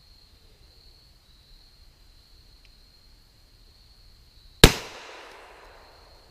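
A single shot from a Smith & Wesson 22 Compact .22 LR pistol, coming a little over four and a half seconds in: one sharp crack followed by an echo that dies away over about a second and a half.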